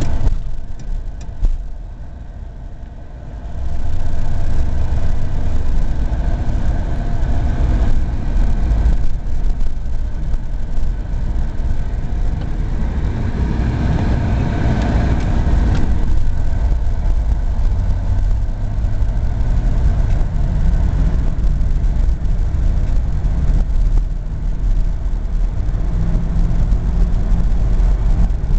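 1969 Cadillac limousine's 472 cubic-inch V8 running under way, heard from inside the cabin with road noise: a steady low rumble. It drops for a couple of seconds near the start, then comes back and runs on, its note rising at times as the car speeds up.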